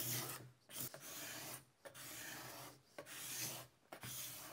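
Cabinet scraper drawn across an end-grain oak and sycamore board in repeated strokes, about one a second, shaving off the dried glue lines between the strips.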